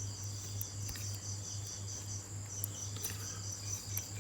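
A steady background chirping with a low hum under it, both pulsing about four times a second, with a few faint clicks from the network cable's thin copper wires being handled and straightened.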